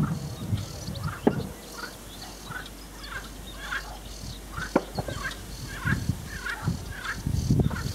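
Sedge warbler singing: a fast, varied stream of short chattering and scratchy notes. Wind buffets the microphone in gusts, with a low rumble near the start and again toward the end.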